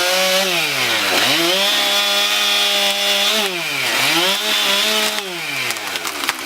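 Chainsaw running at full throttle while cutting into a tree trunk. Its engine note drops twice as the bar loads up in the wood and recovers each time, then eases off near the end.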